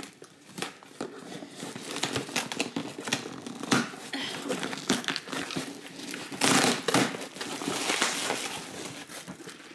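A large cardboard delivery box being opened and its packing rummaged through: irregular crinkling and rustling of packaging, with louder bursts about four seconds in and again around six and a half to seven seconds.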